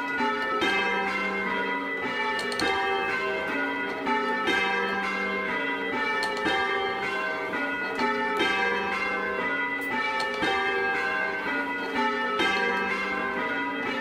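Ring of six church bells in G (tenor about 11 cwt) being rung full circle by hand. Strike follows strike in a steady, continuous rhythm, with the tones overlapping as they ring on, heard from the ringing chamber below the bells.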